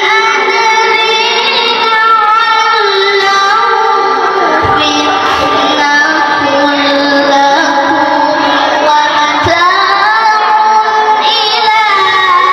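A boy reciting the Qur'an in the melodic qiraat style, drawing out long held notes with ornamented bends in pitch. About ten seconds in, he rises to a higher sustained note.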